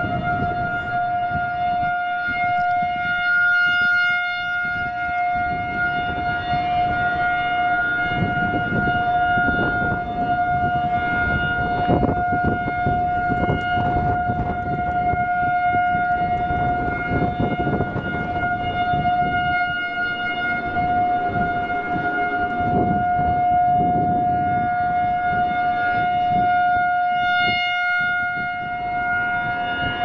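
Federal Signal 2001-SRN electromechanical warning siren sounding a steady single-tone alert at full speed for its scheduled test. Its tone swells and fades slowly as the rotating horn turns.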